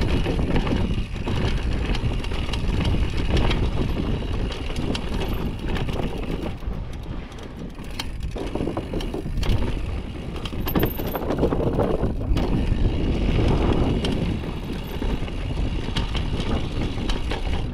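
Downhill mountain bike ridden fast over a dirt and rock trail: tyres rolling and crunching on the dirt, with the bike rattling and clattering over bumps and a steady low rumble.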